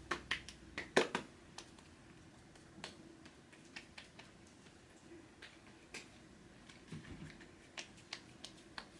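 Hands patting a liquid skincare essence between the palms and onto the face: a few sharp pats in the first second, then scattered faint taps.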